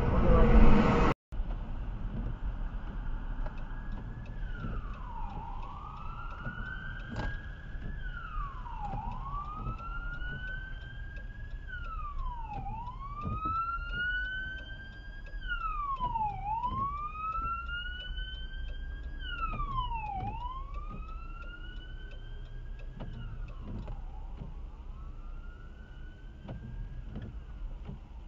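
A short loud passage cuts off sharply about a second in. Then an emergency vehicle siren in a slow wail rises and falls about every four seconds, growing louder and then fading away, heard from inside a car over a steady low rumble of engine and road.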